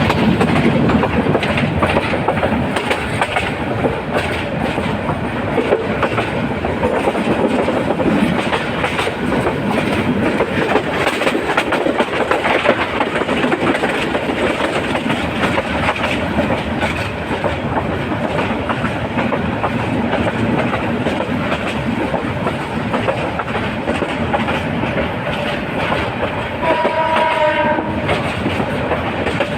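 Train running on the rails with a continuous clickety-clack of wheels over the track joints. A horn sounds briefly near the end.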